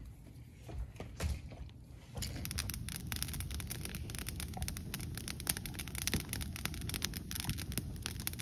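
Wood campfire crackling and popping: a few scattered snaps, then from about two seconds in a dense, irregular run of crackles.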